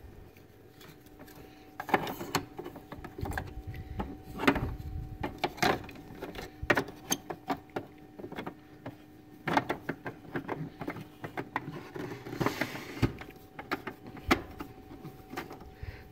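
Plastic cover and housing parts of a Brother VX-1120 sewing machine being handled and pressed back together, an irregular run of sharp plastic clicks, taps and knocks as the cover is fitted onto its clips.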